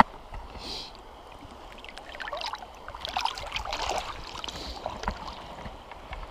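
Water sloshing and splashing at the surface as a hand-held brown trout is let go and swims off, with scattered splashes through the middle few seconds.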